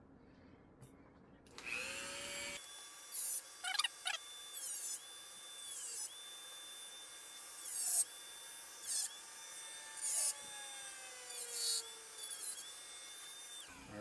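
Corded handheld rotary tool with a cutoff wheel, cutting metal. It spins up about a couple of seconds in, then its high whine dips in pitch again and again as the wheel bites into the metal, each time with a burst of harsh grinding. It stops shortly before the end.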